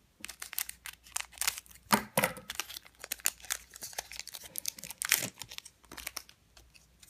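Foil booster-pack wrapper crinkling and tearing as it is opened by hand: an irregular run of sharp crackles, loudest about five seconds in.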